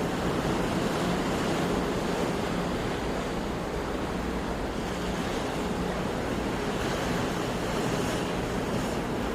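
Sea surf washing ashore in a steady, continuous rush.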